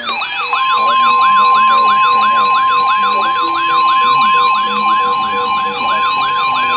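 Weather alert radio sounding its alarm: a quick falling whoop, repeated about three to four times a second. About half a second in, the steady 1050 Hz NOAA Weather Radio warning alarm tone joins it; this tone signals that a warning broadcast follows.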